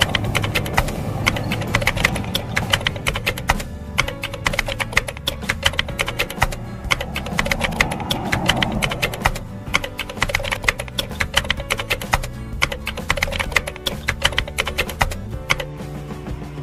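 Keyboard-typing sound effect: rapid clicks over background music. The clicks pause briefly a few times and stop shortly before the end.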